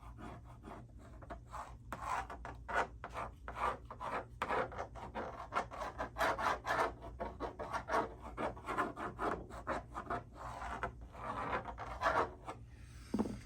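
Pencil scratching on a wooden door as it traces around the outline of a cat-door piece, in a run of short, irregular strokes.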